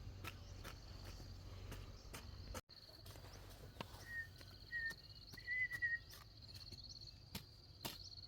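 Insects, crickets or cicadas, trilling steadily in a high pulsing tone, with scattered sharp clicks. A few short, high chirps about four to six seconds in are the loudest sounds.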